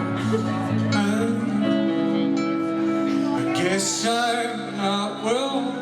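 Live band playing with guitar, poorly recorded with a rough, crappy sound.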